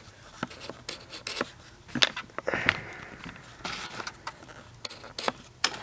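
Irregular light clicks and taps of handling noise, with a short hiss about two and a half seconds in.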